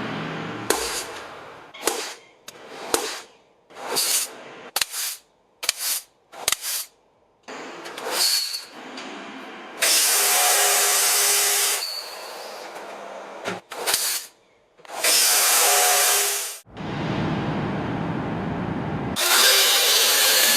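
A quick run of short, separately cut workshop tool sounds: brief power-tool bursts, then longer loud hissing stretches.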